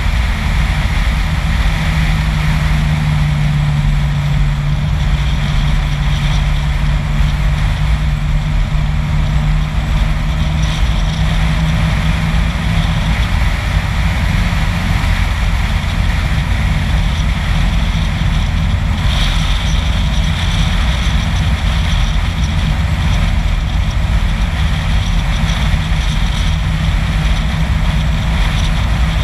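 Steady road and wind noise from a vehicle driving at speed on a paved road, heavy with rumble. A low steady hum fades out about ten seconds in.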